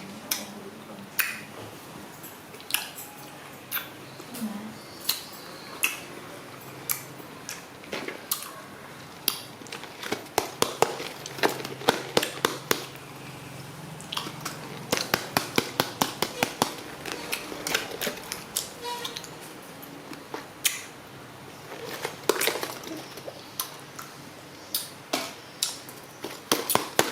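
Plastic packaging and toy parts being handled: irregular sharp clicks and crinkles, thickening into rapid runs of clicks through the middle of the stretch and again near the end.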